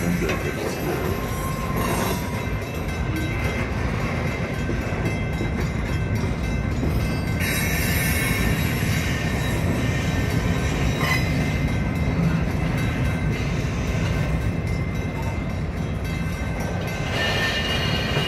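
CN #403's cars rolling past, a steady rumble of steel wheels on rail. A faint high wheel squeal comes in about halfway through and again near the end.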